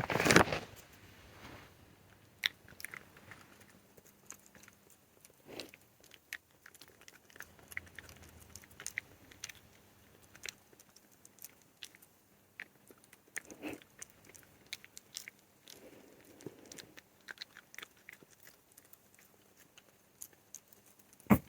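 A fox chewing carob dog-treat buttons: irregular small crunches and clicks, scattered over many seconds.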